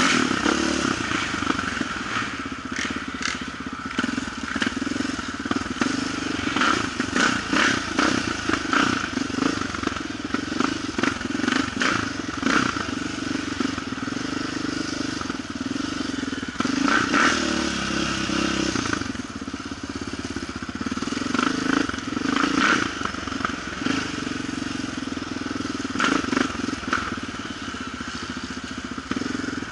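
Quad (ATV) engine running steadily while being ridden off-road, its note dipping briefly about halfway through, with frequent short knocks and rattles from the machine going over rough ground.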